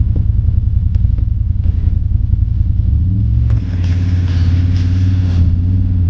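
CFMOTO ZForce 950 HO EX side-by-side's V-twin engine running at low trail speed, a steady low rumble. About halfway through, the engine note changes and settles into a steadier, more even hum.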